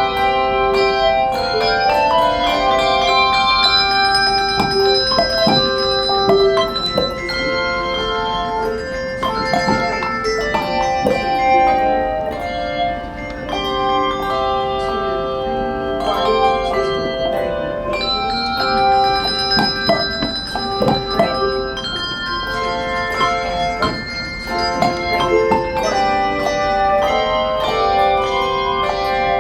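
Handbell choir playing a piece: many bells struck with sharp attacks, several notes sounding together in chords and melody, each ringing on and overlapping the next.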